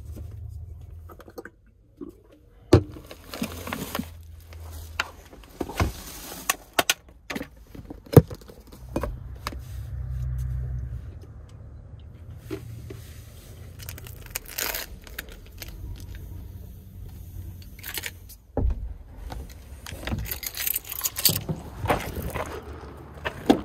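Clothes rustling and scattered clicks, knocks and clatter as a person gets dressed and moves about inside a truck-bed camper shell, over a low rumble that comes and goes.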